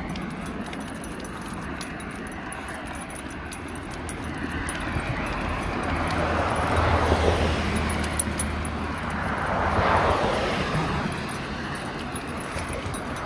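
Cars passing on a wet street: tyre hiss swells and fades twice, about seven and ten seconds in, over a steady background of traffic noise.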